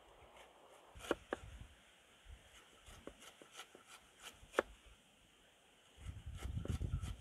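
Cleaver slicing the skin off a pineapple: a few sharp knocks of the blade on the chopping block with lighter cutting ticks between. A low rumbling noise sets in near the end.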